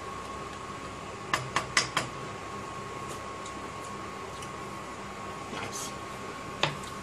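Wooden spoon knocked four times in quick succession against a saucepan, then once more near the end, over a steady faint background hum.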